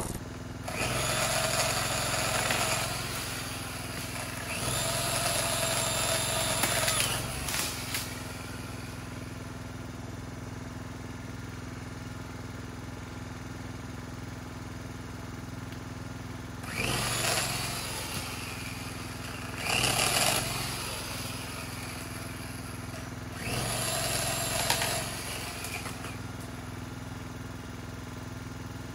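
Worx corded electric chainsaw motors (an 18-inch chainsaw and a 10-inch pole saw) cutting wood in five short bursts, each spinning up to a steady whine and winding down. A steady low hum continues between the bursts.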